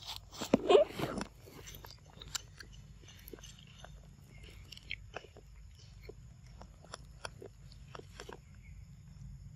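Macaque biting and chewing soft ripe fruit close to the microphone: wet smacks and clicks of eating, with the loudest bite about a second in and scattered clicks after it.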